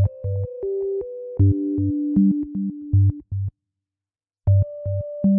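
Background music: a synthesizer melody of held notes over a bass beat, which cuts out for about a second just past the middle and then starts again.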